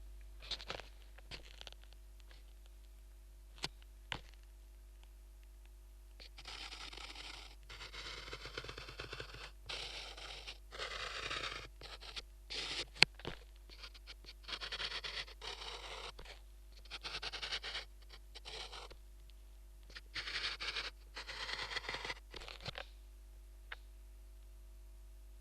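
Drawing strokes picked up through a homemade piezo contact microphone: a few light taps at first, then runs of scraping strokes, each lasting about a second, from about six seconds in until near the end, with one sharp click in the middle. A low steady hum runs underneath.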